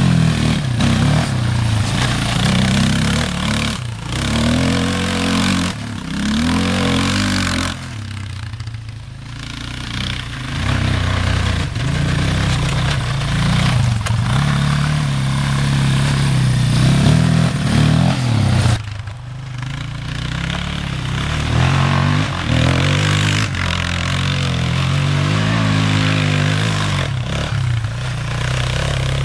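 1990 Yamaha Warrior 350 ATV's single-cylinder four-stroke engine revving up and down again and again as the quad is ridden on dirt, easing off twice, about a third of the way in and again past the middle.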